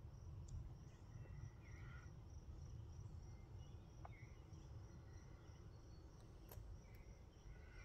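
Near silence: a faint, steady high-pitched insect trill, with a few faint bird chirps.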